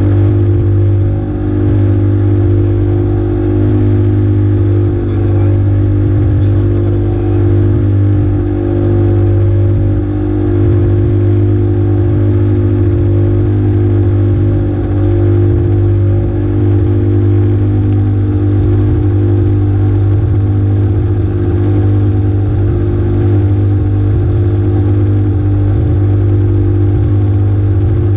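Small engine running at a constant speed, a steady low hum that does not rev up or down.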